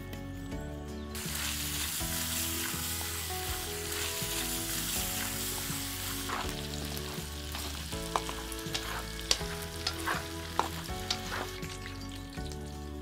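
Diced pork fat sizzling as it lands in a hot wok and starts to fry. The hiss sets in about a second in and is loudest for the next five seconds, then settles into a softer fry with scattered pops and clicks as it is stirred with chopsticks.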